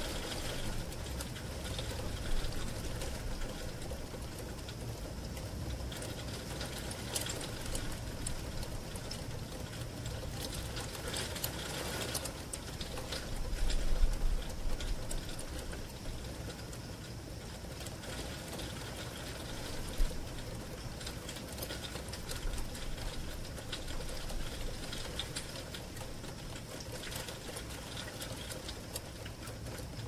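Heavy rain pattering on a bedroom window, heard from inside as a dense stream of tiny ticks on the glass. About halfway through, a low rumble of distant thunder swells and fades.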